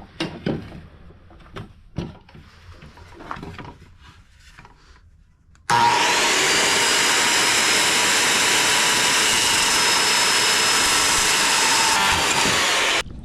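A few light knocks from handling a redwood board, then an electric power saw starts about six seconds in and runs steadily, cutting the board, until it shuts off near the end.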